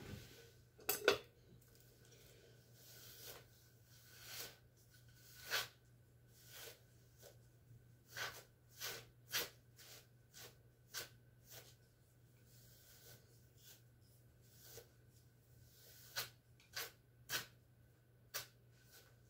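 A hairbrush drawn through long hair in repeated strokes: brief, soft swishes at an irregular pace of about one a second, with a louder pair of handling sounds about a second in.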